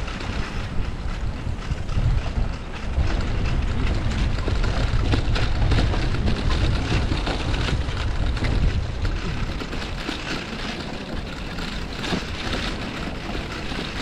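Riding a bicycle over brick paving: wind rumbles on the microphone and the tyres roll over the bricks with a steady stream of small rattles and bumps. The wind rumble eases after about ten seconds.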